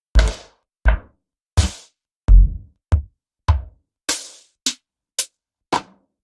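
Electronic drum-machine one-shot samples played one at a time, about ten in a row with short silences between: deep, booming kick-like hits and thinner, brighter clicks and snaps, each dying away quickly.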